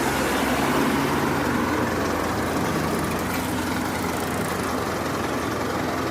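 Heavy construction machinery's diesel engine running steadily.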